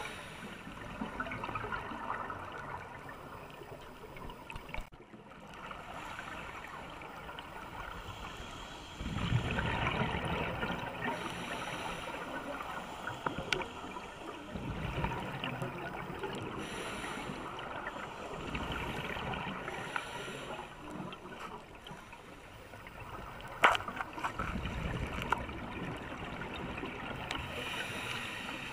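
Scuba diver's exhaled bubbles gurgling and rumbling in bursts every few seconds, heard underwater, with a steady watery hiss between breaths and one sharp click late on.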